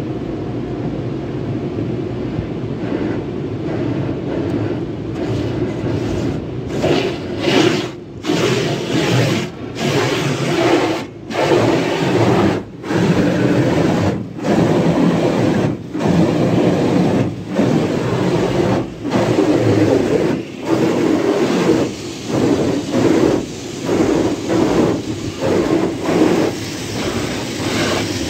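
Tunnel car wash cloth brushes and water spray hitting the car's body, heard from inside the cabin: a steady wash of noise, then from about six seconds in a rhythmic swishing about every second and a half as the rotating cloth sweeps over the glass and panels.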